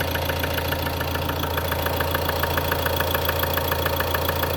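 Ford Transit 2.2 TDCi four-cylinder diesel idling with a rapid, even knock or click, about eight ticks a second, over the engine's steady hum. It is an unidentified fault noise that the owner feels comes from underneath, somewhere under the gearbox near the starter.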